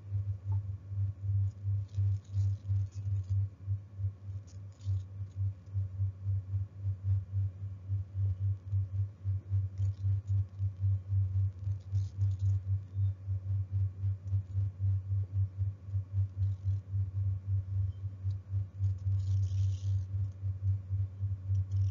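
A low, steady hum that pulses rapidly and evenly, with a few faint brief scratchy sounds over it.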